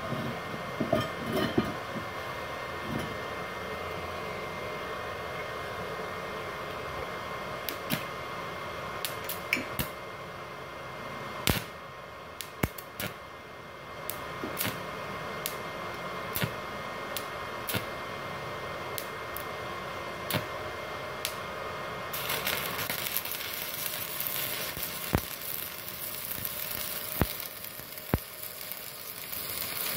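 Small Multipro INA 125A IGBT inverter stick welder humming steadily, its cooling fan running, with scattered clicks and taps. About twenty seconds in, the arc is struck on a 2 mm electrode and burns with a steady crackling hiss.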